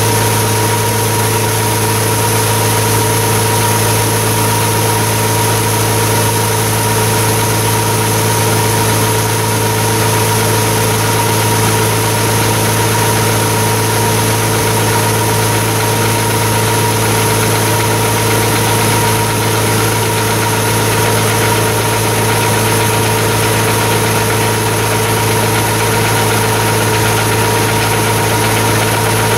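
Gleaner combine running steadily at a constant pitch while unloading harvested oats into a wagon.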